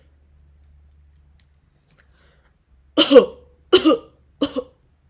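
A person coughing three times in quick succession, starting about three seconds in, with only a faint low hum before.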